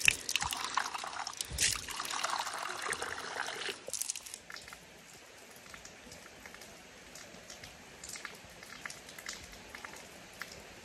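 Spring water trickling from a spout on a rock and pouring into a cup, steady for about four seconds, then dropping off suddenly to a faint background.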